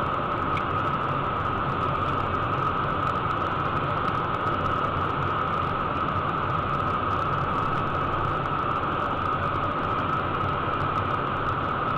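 Steady in-flight cockpit noise of a Cessna Citation 501 business jet: its twin turbofan engines and the airflow make an even rush with a steady high whine over a low hum.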